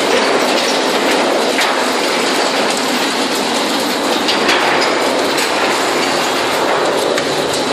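Refining machine running with no extraction pipe fitted, fine granular material rattling steadily across its deck in a loud, even hiss of tiny impacts.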